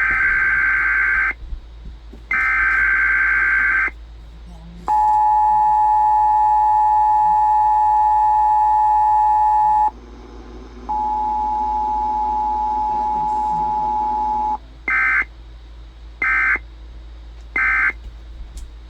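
Emergency Alert System test signal received over the radio. It opens with two bursts of screechy SAME header data tones, followed by a steady two-tone attention signal for about five seconds. After a short gap there is a further steady single tone over a low hum, and near the end three short end-of-message data bursts.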